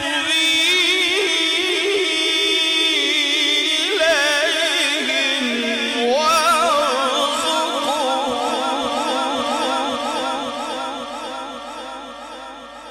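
A man's voice reciting the Quran in melodic tajweed style, holding long drawn-out notes with wavering, ornamented pitch. The pitch drops about five seconds in, and the voice fades away near the end as the phrase closes.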